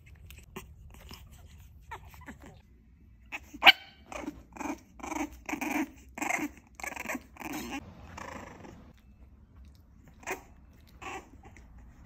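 French bulldog puppies play-fighting and yapping: a run of about eight short, high yaps in quick succession in the middle, and two more near the end. Small scuffling clicks come before the yaps, with one sharp click just before the run.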